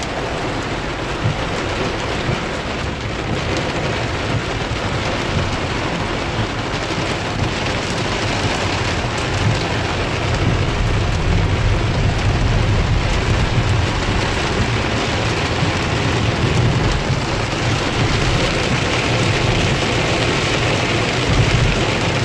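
Heavy downpour pouring steadily, with a low rumble swelling about halfway through.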